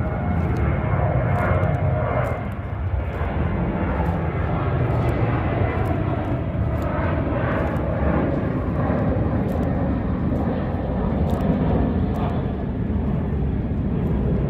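Jet airliner flying low overhead, a steady loud low rumble with a hiss above it.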